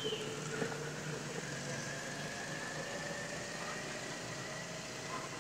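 Steady background engine hum, even throughout, with a few faint held tones over it.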